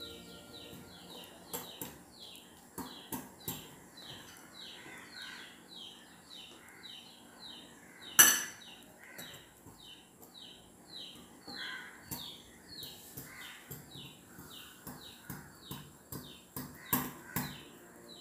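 Wire whisk clinking and tapping against a glass bowl while flour is mixed into a beaten egg batter: irregular light clicks, with one sharp, louder knock about 8 s in. Behind it runs a steady series of high chirps, about two or three a second.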